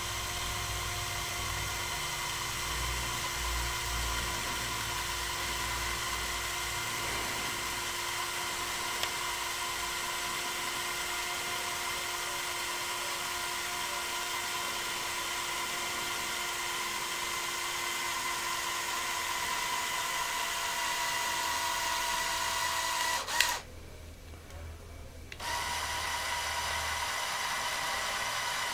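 Electric motors and plastic gearing of a Lego Technic sideloader forklift model whirring steadily as the mast sled travels sideways toward the load. The whir stops with a click about 23 seconds in, pauses for about two seconds, then starts again at a slightly different pitch.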